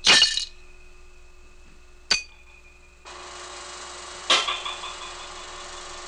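Three sharp strikes on metal, each leaving a ringing tone: handmade sound effects made by hitting a metal film can with a wooden stick. The third strike rattles briefly as it dies away, and a steady hiss comes in about three seconds in.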